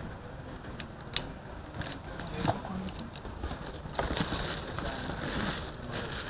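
An electric kettle's box and packaging handled as it is unboxed: a few sharp clicks and taps, then steady rustling from about four seconds in.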